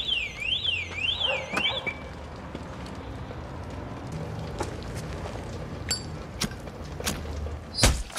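Car alarm wailing up and down about twice a second, cutting off about two seconds in. A few faint clicks follow over a low steady rumble, then a loud thud near the end.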